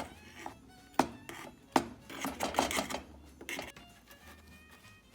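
Background music with a light stepped melody, over two sharp knocks about a second in and a spell of crackly handling noise after them.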